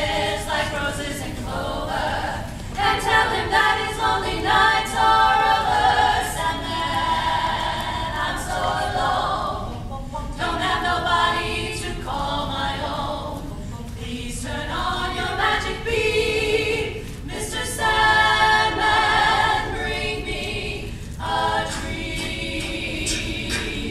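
An a cappella vocal group singing in close harmony, with sliding vocal swoops and short clicks through the singing.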